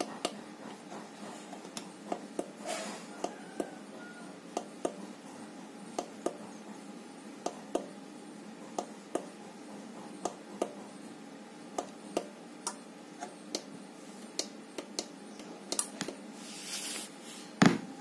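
A series of light, sharp clicks or taps, spaced unevenly about one to two a second, over a faint steady hum. Near the end comes a brief hiss, then one much louder thump.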